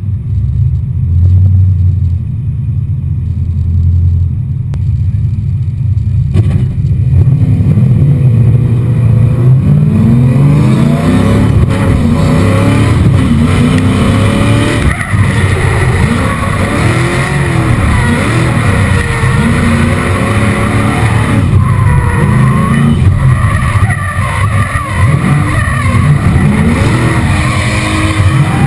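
Nissan S13 drift car's 7-litre LS7 V8 running at low revs, then from about six seconds in revving hard, its pitch rising and falling over and over through a drift run, with the tyres skidding.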